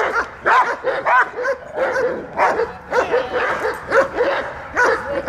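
Groenendael Belgian Shepherd barking repeatedly and fast, about two barks a second. This is guard barking at a training decoy during protection work.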